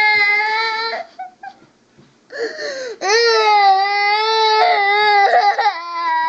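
A young girl crying out loud in long, high wails: one wail ends about a second in, then after a short pause with a catch of breath a second long wail runs from about two and a half seconds to five, breaking into shorter sobs near the end.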